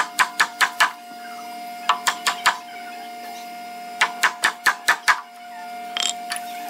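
Wooden-handled woodworking chisel being struck in quick bursts of sharp knocks, about five a second, as it chops a mortise in hardwood. A brief rustle of wood chips being swept aside comes near the end. A faint steady hum sits underneath.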